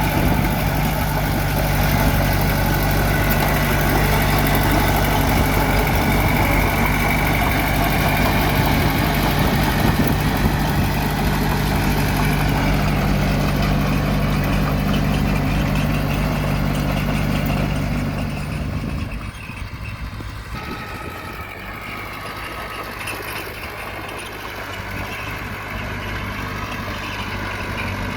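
Diesel engine of heavy earthmoving machinery running steadily. About 18 seconds in it drops to a quieter, lower run, then slowly builds again.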